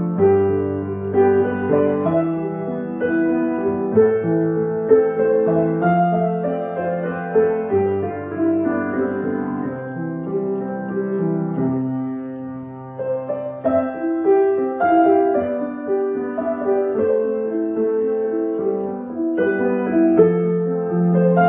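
Solo piano playing a melody over held bass notes, with a softer, thinner passage a little past halfway before the fuller playing returns.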